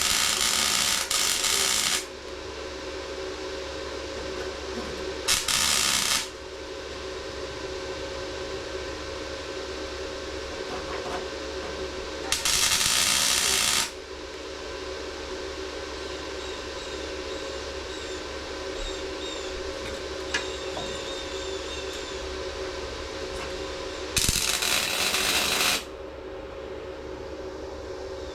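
MIG welding on a car's sheet-metal rear panel: four short runs of crackling, hissing arc, each lasting one to two seconds, with a steady hum between them.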